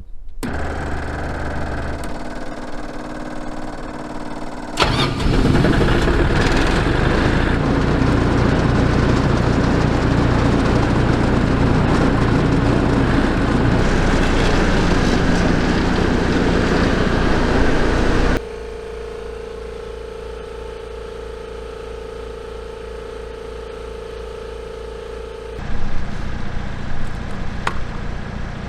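MEP-802A military diesel generator and an air compressor running. The machine sound changes abruptly several times: it gets much louder and rougher about five seconds in, drops to a steadier, quieter hum with a held tone at about eighteen seconds, and turns loud and uneven again near the end.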